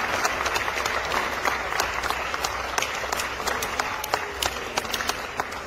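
Audience applauding, a dense patter of many hands clapping that slowly dies down toward the end.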